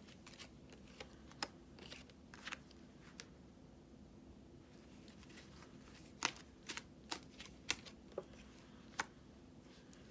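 A deck of tarot cards being shuffled by hand: quick, sharp card flicks in two spells, about a second in and again about six seconds in, with a quieter pause between. A faint steady hum sits underneath.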